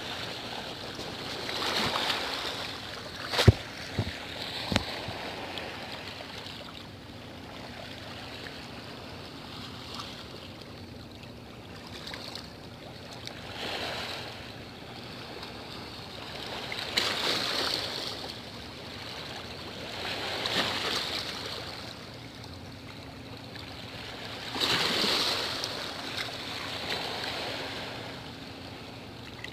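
Sea waves washing against the shore, swelling and fading every few seconds, with three sharp knocks a few seconds in.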